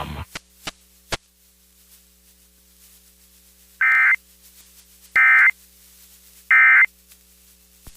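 Emergency Alert System end-of-message data tones: three identical short bursts of digital screech a little over a second apart, signalling the close of the broadcast alert. A few faint clicks come before them.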